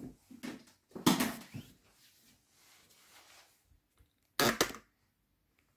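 Short knocks and clunks of a laptop and its power cable being handled on a table, the loudest about a second in and a quick pair of knocks at about four and a half seconds.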